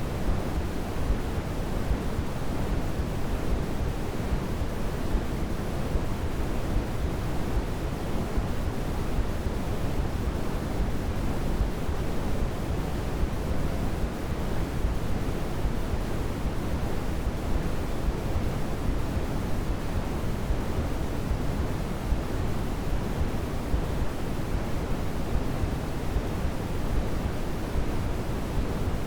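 Steady synthetic noise, a soft hiss weighted toward the low end like pink or brown noise, without change or break.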